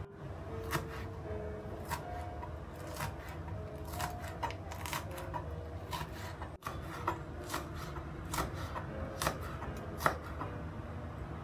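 Chef's knife slicing through long green chillies onto a plastic cutting board: irregular sharp taps, one or two a second, the loudest near the end. A steady low hum runs underneath.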